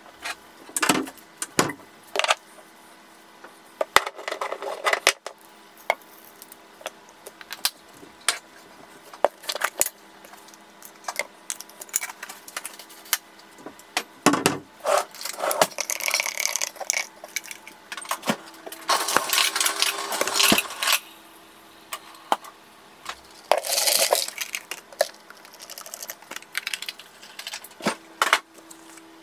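Kitchen clatter while making a coffee: scattered clinks and knocks of cups, utensils and counter, with a few longer rushing noises in the middle and near the end, over a faint hum that comes and goes.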